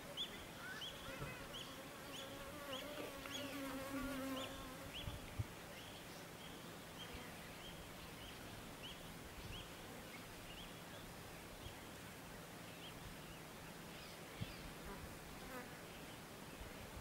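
An insect buzzing in flight for the first few seconds, its pitch wavering. Under it and after it comes a series of short high chirps, about one every half second, growing fainter.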